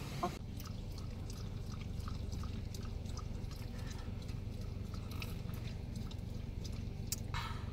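Inside a parked car with the engine idling, a steady low hum. Over it come scattered small clicks and sips from people drinking iced tea out of large cups, and a short hissy sound near the end.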